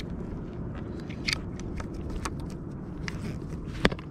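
A fishing landing net and rod being handled, giving scattered light clicks and rustles with a sharper click near the end, over a steady low rumble.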